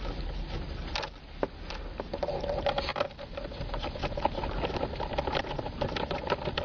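A socket wrench clicking and scraping as it turns out the small 5.5 mm screws holding a car's plastic steering column cover. Irregular sharp clicks come throughout, and from about two seconds in there is a ringing metallic tone.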